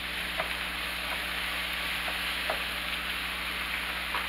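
Thinly sliced onions, bell peppers and mushrooms sizzling steadily in oil in a frying pan, with a wooden spatula scraping and knocking against the pan a few times as they are stirred.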